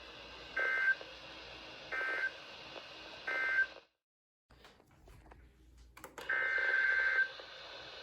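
Emergency Alert System SAME data bursts from a weather radio: three short, buzzy digital bursts about a second and a half apart, the end-of-message code that closes a flood warning. After a brief silence and a few clicks, a longer burst of the same kind starts near the end: the first header burst of the next alert.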